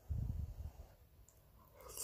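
Close-up mouth sounds of eating spaghetti: a brief low rumble at the start, then quiet, then a short slurping noise near the end as a forkful of spaghetti goes into the mouth.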